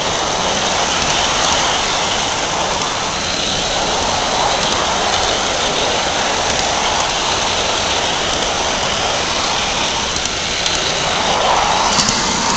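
Large-scale garden model train rolling along its track, heard from a camera riding on the train: a steady rattling of wheels on the rails, with a few sharper clicks near the end.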